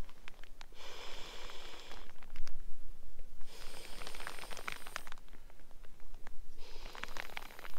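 Crinkly nylon fabric of a Sea to Summit inflatable sleeping pad rustling and crackling as it is handled and pushed into a bough shelter, in three bouts of a second or so each.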